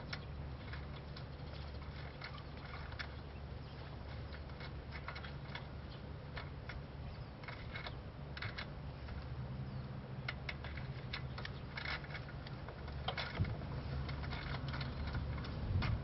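Scattered light clicks and taps of hand tools working on a motorcycle's rear chain adjusters, over a steady low hum.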